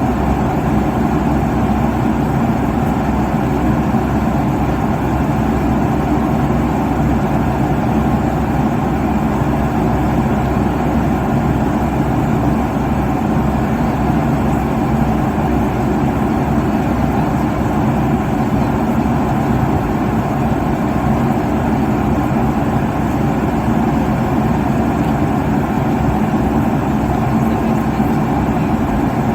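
Airliner cabin noise at cruising altitude: a steady, unchanging rush of airflow and engine noise, heavy in the low end, with a faint steady hum underneath.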